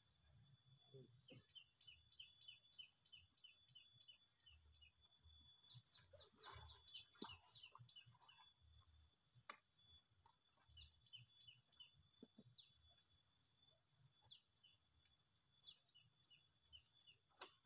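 A faint bird song: quick runs of short descending notes, about four a second, loudest in a run from about six to eight seconds in, then scattered single notes.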